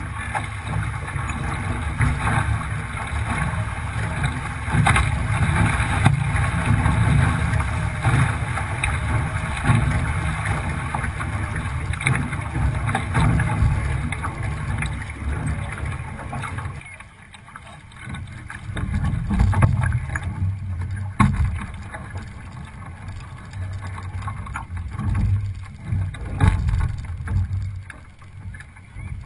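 Water rushing and splashing along a Hobie 16 catamaran's hull under sail, with wind buffeting the microphone and short knocks of waves against the hull. The rushing drops abruptly about two-thirds of the way in, then returns in uneven surges.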